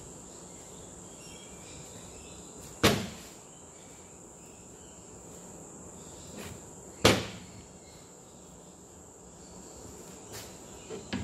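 Two sharp knocks on a workbench, about four seconds apart, as a pump spray bottle and tools are handled and set down. Under them runs a steady high-pitched whine with low workshop background noise.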